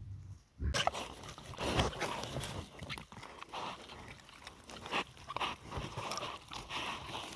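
Moose close to a trail camera at a mud wallow: irregular noises of movement, with many short knocks and rustles, starting abruptly less than a second in.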